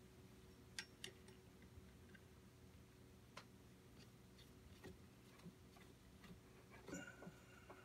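Near silence with a few faint, irregularly spaced clicks and taps of small engine parts being handled by hand, over a low steady hum.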